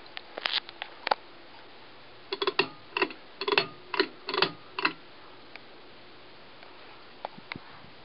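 Fanimation Edgewood ceiling fan running with a faint steady whir, overlaid by sharp clicks: a few near the start, a quick irregular run of about ten in the middle, and a couple more near the end.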